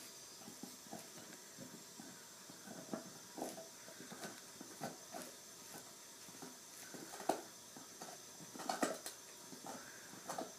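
Saint Bernard gnawing and chewing on a big bone: irregular faint clicks and scrapes of teeth on the bone, with a few sharper bites in the second half.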